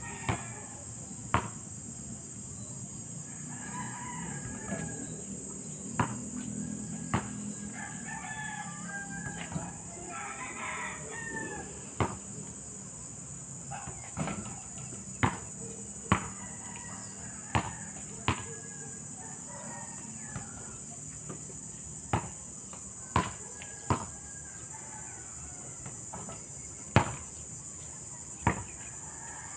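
A basketball knocks sharply about a dozen times at irregular gaps as it is shot and bounced on an asphalt court. Roosters crow on and off in the background over a steady high drone.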